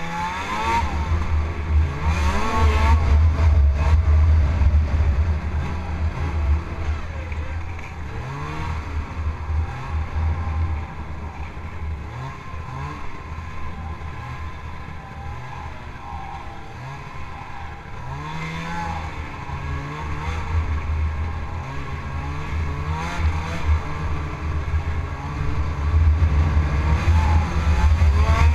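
Snowmobile engine running while riding, its pitch rising several times as the throttle opens, over a steady low rumble.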